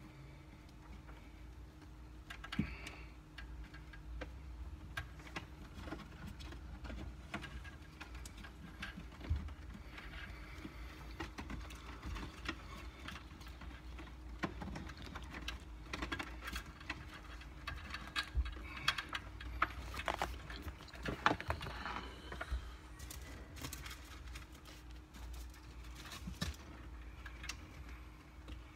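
Scattered, irregular clicks, taps and rustles of wiring-harness cables and plastic dash parts being handled and fitted in a car dashboard, busier in the second half, over a faint steady hum.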